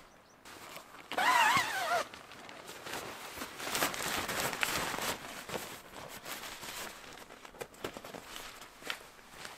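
Nylon tent flysheet rustling and crinkling as it is handled and fastened by hand, with small clicks. About a second in, a loud wavering animal call lasts just under a second.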